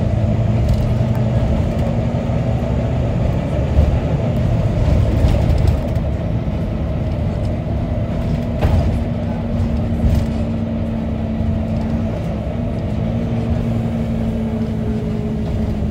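A service bus's engine running and road noise inside the passenger cabin as the bus drives, a steady low rumble with a held engine tone. A few short clicks or rattles of the bodywork come through midway.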